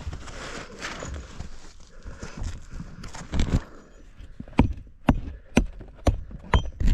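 Rock and rubble scraping during digging in a cave passage, then sharp knocks about twice a second in the second half as rock is struck.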